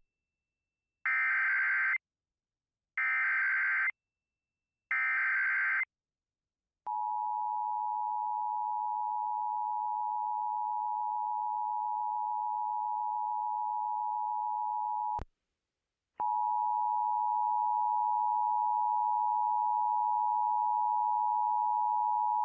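Emergency Alert System tones from a Sage ENDEC: three short warbling SAME digital header bursts about two seconds apart, then the steady two-tone EAS attention signal, which stops for about a second near the middle and then sounds again. This is the opening of a new relayed alert, here a tornado warning.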